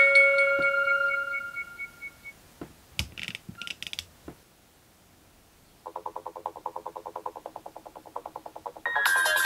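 Nokia N70 ringtones: a marimba-like ringtone's last notes fade out, followed by a few short clicks and a brief pause. The next ringtone begins with a fast pulsing beep, about ten pulses a second, and swells into a louder, fuller electronic melody near the end.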